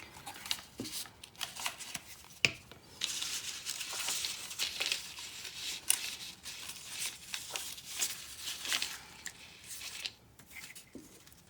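Paper and tissue paper rustling and crinkling as they are handled and pressed together, with a few light clicks and taps; the rustling is densest in the middle.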